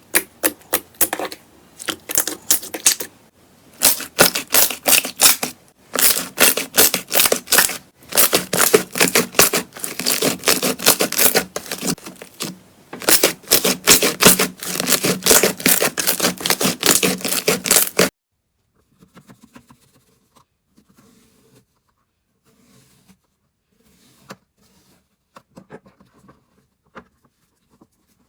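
Slime being squeezed and pressed by hand, crackling and popping in rapid clicks in bursts of a few seconds each. About eighteen seconds in it drops to faint, scattered clicks.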